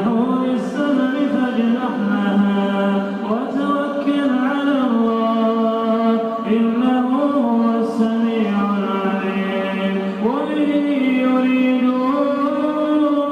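A man reciting the Quran in the melodic tajwid style, one continuous voice holding long drawn-out notes with ornamented rising and falling turns.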